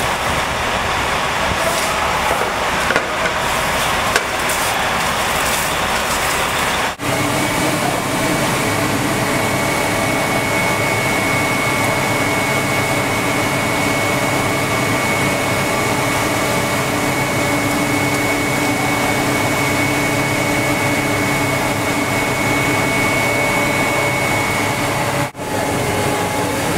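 Rail-mounted rotary snow-thrower car running: a steady engine and blower drone with a high whine, interrupted by two abrupt breaks.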